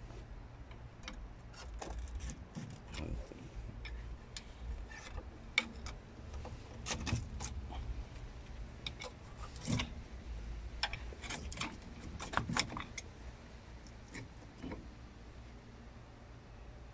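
Hand tools and metal parts clinking against a VW T5/T6 rear brake caliper as it is handled: scattered metallic clicks and clinks, with a few louder ones in the middle.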